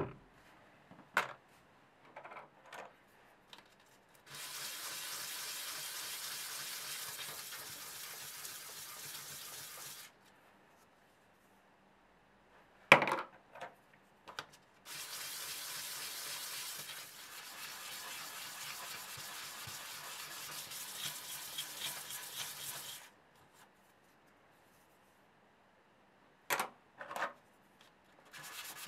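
Wooden button blanks being rubbed flat on a sheet of sandpaper under a block: two long spells of steady scratchy sanding, one of about six seconds and one of about eight. Between them come a few sharp knocks and clatters, the loudest about halfway through.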